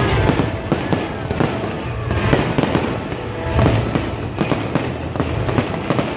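Fireworks going off in a dense, rapid crackle of sharp pops over a low rumble, with a gliding whistle now and then.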